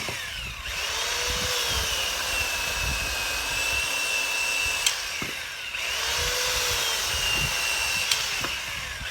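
Black & Decker Alligator electric lopper chainsaw running with a steady high motor whine. Twice, about half a second in and again around five and a half seconds, the whine drops in pitch and then speeds back up. A few sharp clicks sound in the second half.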